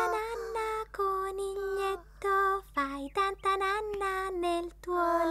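A child's voice singing a gentle tune in a string of short held notes with brief gaps between them.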